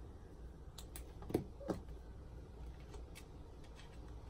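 Small desk-handling sounds: two soft knocks close together a little over a second in, with light clicks before and after, as a pen is set down on a notebook and a highlighter is picked up and handled.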